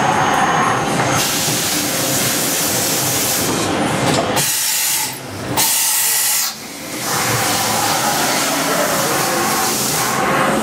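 Okuma MC-4VAE vertical machining center running a test program on a loop, with a loud steady hiss. A thin high whine runs for about the first second, until the hiss swells, and the sound dips briefly twice near the middle.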